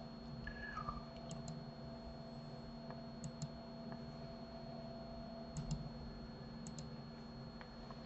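Computer mouse clicking, faint: about five clicks spread over the seconds, each a quick press-and-release pair, over a steady low hum.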